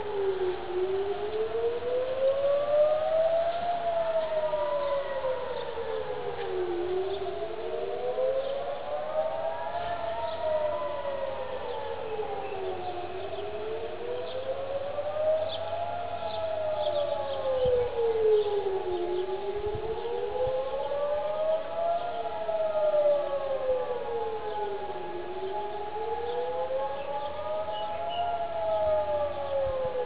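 Home Front Command rocket-alert sirens sounding a scheduled test: at least two sirens wailing up and down, about six seconds per rise and fall, out of step with each other. A steady held tone joins in a little past halfway.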